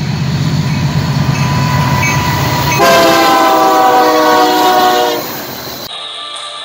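Union Pacific diesel freight locomotive passing with a low engine rumble, then sounding its multi-tone air horn for about two and a half seconds, the chord sagging slightly in pitch as it goes by. The sound cuts off suddenly near the end.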